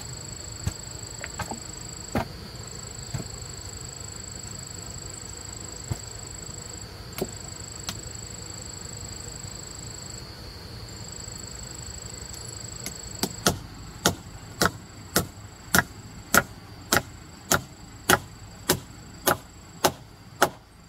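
Sharp blows of a hand tool: a few scattered knocks, then from about two-thirds of the way through a steady run of strikes, a little under two a second. A steady high-pitched tone runs underneath.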